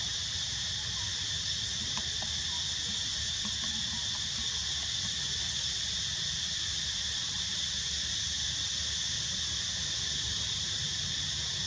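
Steady insect chorus: a shrill, continuous ringing at several high pitches that never breaks, over a low rumble.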